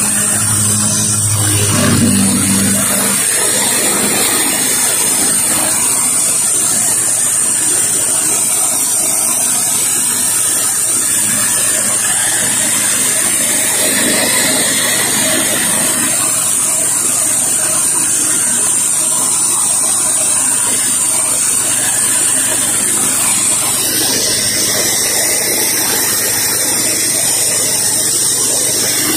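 Pressure washer running with a 15-inch flat surface cleaner working over concrete: a loud, steady spray hiss that holds unchanged. A low hum sits under it for the first few seconds.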